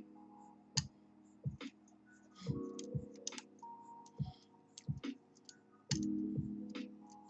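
Background music with sustained synth chords and a steady low beat. Over it come irregular faint small clicks of a lock pick working the pins of a pin-tumbler lock.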